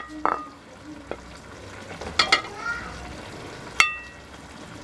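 Serving spoon scooping cooked white rice and clinking against the pot and a plate: about six sharp clicks, each with a short ring, the loudest about four seconds in, over a low kitchen hiss.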